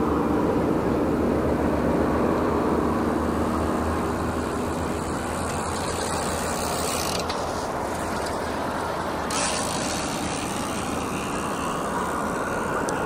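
Twin jet engines of a Boeing 767-300ER heard from afar on final approach: a steady rumble, with a faint high whine that rises near the end.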